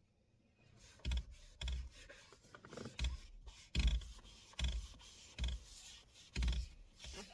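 Sponge rubbing liquid leather binder into a leather steering wheel in repeated wiping strokes, a little over one a second, starting about a second in.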